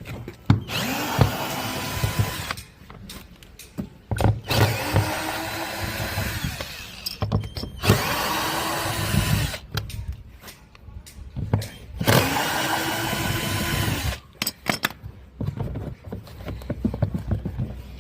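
Electric drill-driver run four times in bursts of about two seconds, spinning up at the start of each burst, unscrewing the fasteners to take off a washing machine's pulley. Clicks and knocks of handling fall between the bursts.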